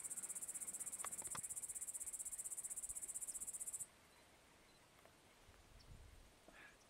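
Crickets chirping in a fast, steady, high-pitched trill that cuts off suddenly about four seconds in. There are a couple of faint clicks about a second in.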